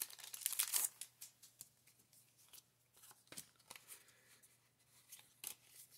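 Pokémon trading cards being handled: a dense rustle in the first second, then sparse light clicks and slides of card stock.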